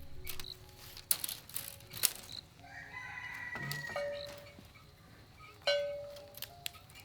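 A rooster crows once, about three seconds in, a drawn-out call that falls slightly at the end. Around it are several sharp knocks, each followed by a short ringing tone.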